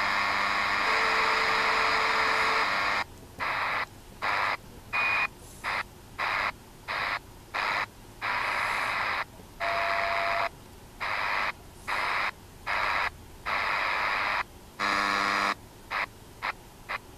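Shortwave receiver in SSB mode giving static hiss with a few short steady whistles from carriers. About three seconds in, the static starts cutting in and out in irregular chunks with short silent gaps, as the radio steps through the band.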